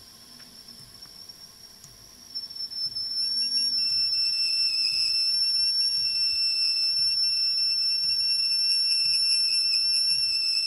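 Sticky-shed tape squeal: an old Ampex tape squealing as it drags across the heads and guides of a TASCAM reel-to-reel deck in playback. Its binder has soaked up moisture and turned sticky. The high, steady squeal is faint at first, then jumps much louder about two seconds in and holds.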